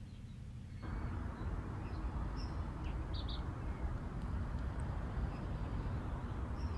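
Steady outdoor ambient noise that starts abruptly about a second in, with a few brief, faint, high bird chirps over it.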